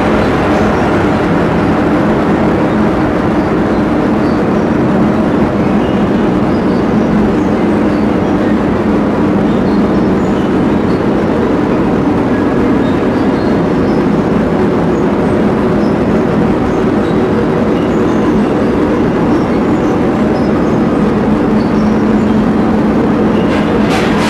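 Electronic noise soundscape built from London Underground train recordings: a loud, steady train-like rumble with a low hum underneath.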